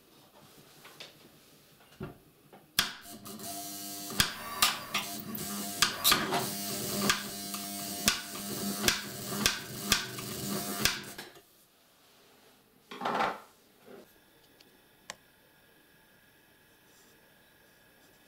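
Kenmore Ultra Stitch 12 sewing machine's electric motor running for about eight seconds with a steady hum and many irregular sharp clicks, then stopping; the clicking is suspected to come from a worn motor belt or faulty belt pulley. A short scraping rustle follows a couple of seconds later.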